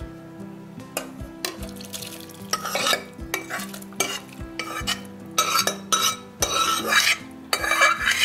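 Steel ladle scraping and knocking inside a metal pressure cooker as thick cooked beetroot, tomato and dal mixture is tipped and scooped into a mesh strainer. A run of irregular scrapes that gets busier and louder from a few seconds in.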